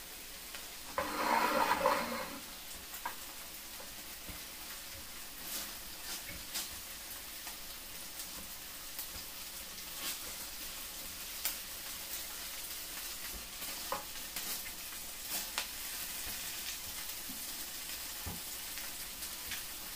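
Food frying in a pan: a steady sizzle, with scattered light spatula taps against the pan. There is a brief louder noise about a second in.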